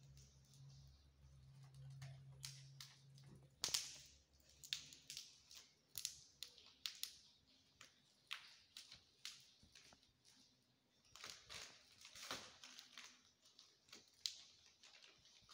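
Faint, irregular scratches and rustles of kittens' claws catching on woven plastic sacks and plastic bags as they climb over them.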